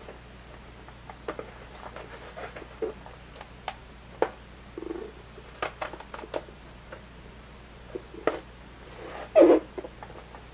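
Irregular small clicks, taps and rustles of packaging being handled and undone, with a louder scrape near the end.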